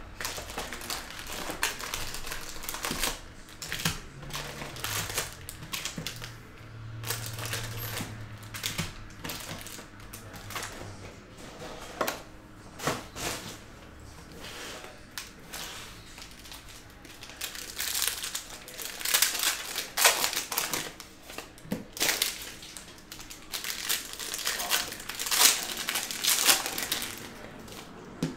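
Hobby box of 2022 Panini Capstone Baseball trading cards being opened by hand: cardboard flaps torn and foil card packs pulled out and stacked, then packs ripped open with crinkling of the wrappers and cards being flicked and shuffled. The tearing and crinkling grow busier and louder about halfway through.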